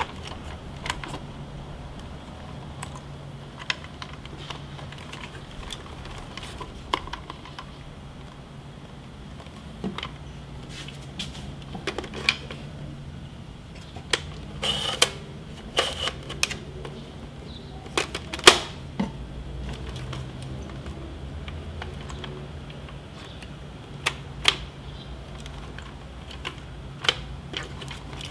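Irregular plastic clicks and clacks from a Polaroid OneStep 600 instant camera being handled, its film door and parts opened and snapped shut. Several sharper snaps come in the middle, over a faint steady low hum.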